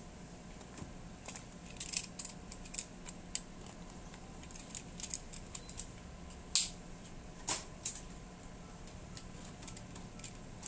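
Light handling clicks and taps of a table tennis blade and a rubber sheet being handled on a cutting mat, with two sharper knocks about six and a half and seven and a half seconds in. A faint steady hum runs underneath.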